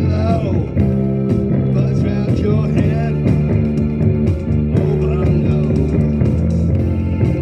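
Rock band playing live with guitar to the fore, a full, steady mix at a sound check.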